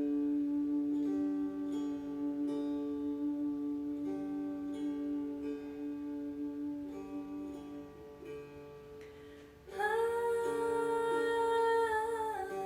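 Meditative music: a voice holds a long low note over slow plucked strings. Near the end the voice rises into a louder held note for a couple of seconds.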